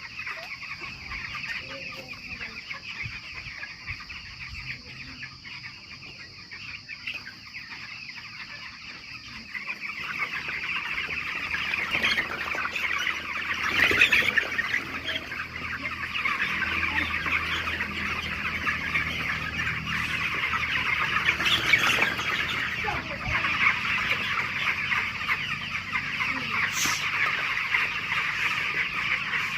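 A flock of chickens clucking and chattering together, many birds at once, growing louder about ten seconds in.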